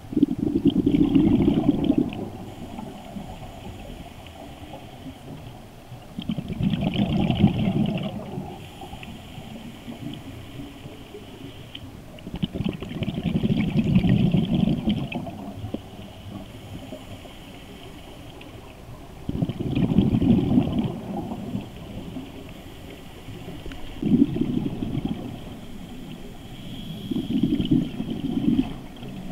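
Scuba diver's regulator breathing underwater: bursts of exhaled bubbles rumble and gurgle past the camera about every five to six seconds, six times, with quieter hiss in between.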